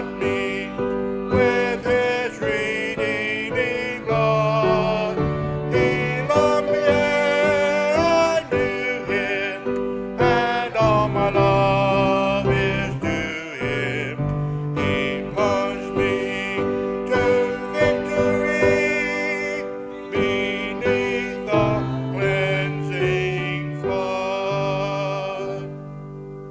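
Hymn music: singing with vibrato over an instrumental accompaniment with a moving bass line, ending on a held final chord that fades away.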